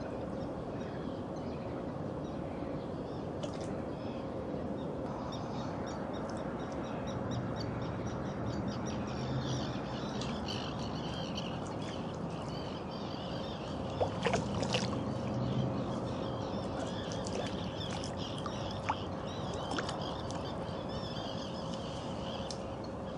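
Birds chirping and calling over a steady outdoor background hiss, with lower calls in the middle. A few short, sharp sounds come about two-thirds of the way through.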